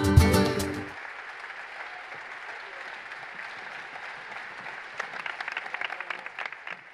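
The flamenco ensemble's last held chord stops about a second in, and applause follows, with louder, distinct claps from about five seconds in.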